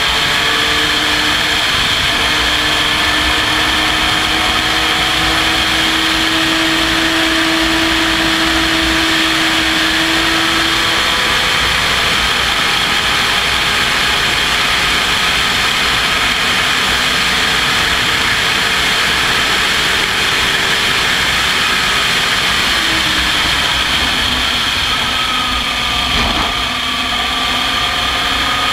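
Open-cockpit race car's engine running hard at high revs, heard from the onboard camera, with heavy wind and road noise. The engine note climbs slowly as the car accelerates. Near the end it drops briefly and rises again.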